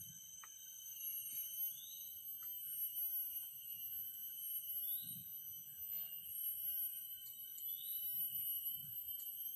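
Forest insect chorus: several steady, high-pitched drones overlapping, with a short rising call repeated about every two and a half seconds.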